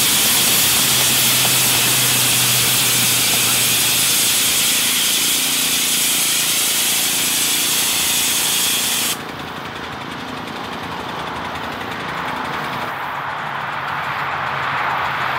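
Loud, steady hiss of escaping steam from a small wood-fired live steam locomotive, cut off suddenly about nine seconds in. After that, a quieter rushing sound of a small live steam locomotive running, growing louder as it approaches.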